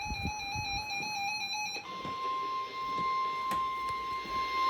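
Emergency alert broadcast tones from NOAA Weather Radio. A warbling digital data burst, the SAME header, cuts off about two seconds in, and a steady single-pitched 1050-hertz warning alarm tone follows and holds.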